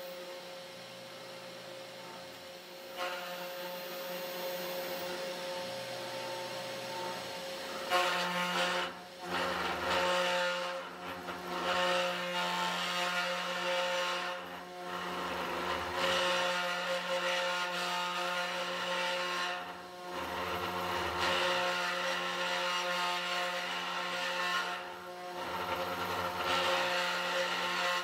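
The small spindle motor of a 3018 Pro Max desktop CNC router runs steadily while a 30-degree V-bit cuts a relief into beech wood, line by line, under the whine of its stepper motors. It is quieter for the first few seconds and louder from about eight seconds in. After that the sound dips and swells every five or six seconds as each pass ends and the next begins.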